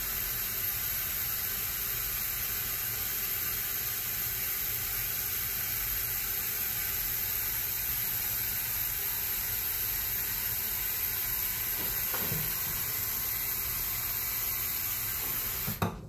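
Kitchen faucet running steadily into a coffee-maker carafe, topping up vinegar with water to the 12-cup mark. The flow cuts off suddenly near the end.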